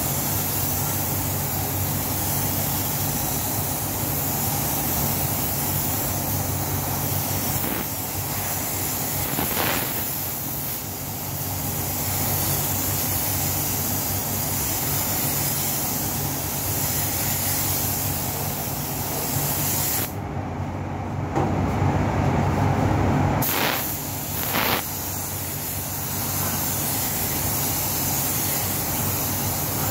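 Compressed-air gravity-feed spray gun hissing steadily as it sprays a blue base coat onto a car body, over a steady low hum from the spray booth's fans. About twenty seconds in, the hiss cuts out for about three seconds while a louder low rumble takes over.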